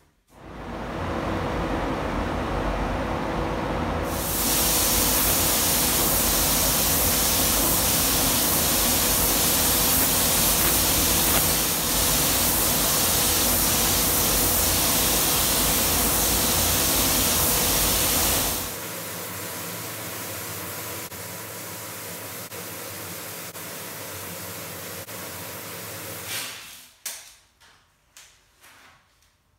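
Air spray gun spraying paint: a loud, steady hiss of air that starts about four seconds in and stops after about fourteen seconds. A lower, steadier hiss and rumble runs under it and goes on quieter for several seconds after. Near the end come a few short crackles of masking tape and paper being peeled off.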